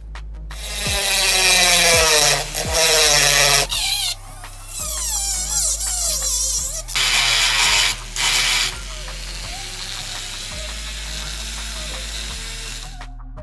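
Small handheld power tool running in bursts, its motor pitch wavering and dropping as it bites into the work, then a steadier, quieter run before it stops near the end; background music underneath.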